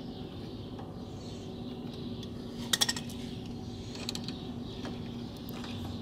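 Pliers cutting through the thin metal wire rod of a car door lock mechanism: a short burst of sharp metallic clicks and snaps a little under three seconds in, with a few lighter clinks about a second later.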